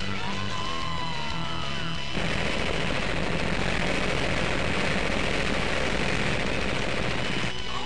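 A rapid-fire barrage of cartoon explosion and impact sound effects over background music. It starts about two seconds in and runs for about five seconds as a dense crackling blast, then stops. Before it, a whistling tone glides up and down over the music.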